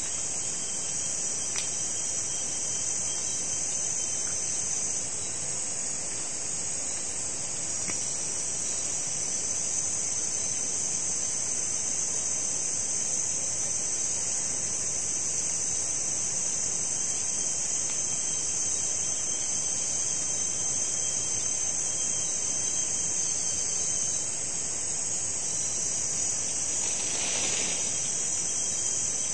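Steady, high-pitched chorus of forest insects, several layers of shrill trilling that shift slightly in strength now and then, with a faint click early on and a brief soft rustle near the end.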